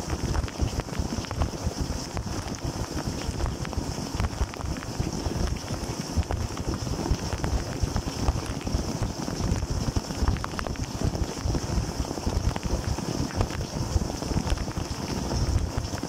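Dishwasher wash cycle heard from inside the tub: jets of water from the spray arms splash and drum against the camera housing and the dish racks in a steady, churning rush.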